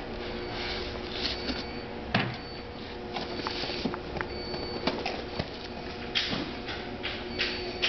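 Cardboard cartons being handled: a small box slid out of a shipping carton, then cartons carried and lifted onto a stack. Cardboard scrapes and rustles, with many short knocks and thumps throughout.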